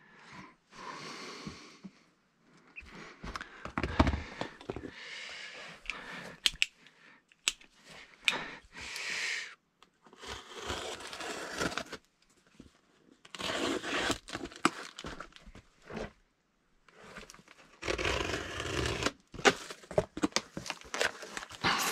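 Utility knife slitting packing tape on a cardboard box, with the cardboard scraping and rustling as the flaps are worked open, in irregular bursts of a second or two.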